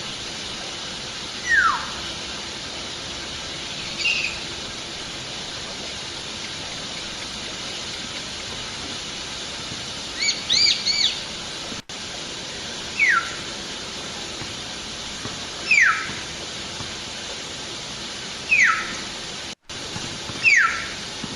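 Wild hill myna calling: a series of loud, sharp whistles, each falling steeply in pitch, repeated every few seconds, with a short burst of quick warbled notes about ten seconds in. A steady hiss of background noise runs underneath.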